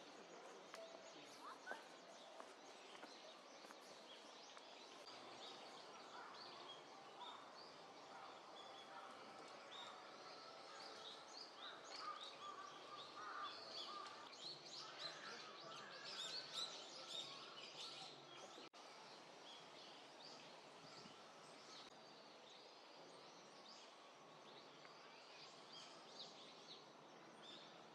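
Faint chirps and calls of small birds over a steady low background hush, busiest in the middle stretch.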